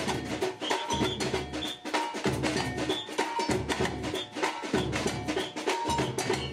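Samba batucada percussion band playing: deep surdo bass drums pulse about every two-thirds of a second under fast, busy stick and shaker rhythms with short bell-like tones on top.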